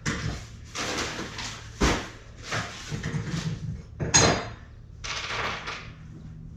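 Steel wood chipper parts being handled and fitted by hand: scraping and shuffling, a heavy thud about two seconds in, and a sharp metallic clang that rings briefly about four seconds in.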